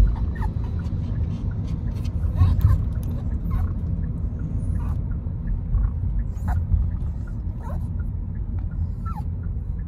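Maltese dog whining in short high whimpers, one every second or so, over the steady low rumble of a moving car.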